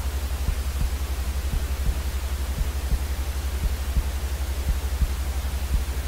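Steady white-noise hiss of a baby sleep-soothing noise track, over a fast, even low throb.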